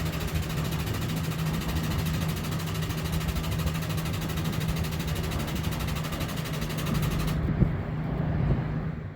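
An engine running steadily: a constant low hum under an even hiss. The higher part of the hiss drops away about seven seconds in.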